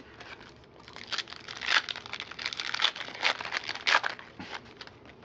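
Plastic foil wrapper of a trading card pack being torn open and crinkled by hand, a run of sharp crackles from about a second in, loudest twice.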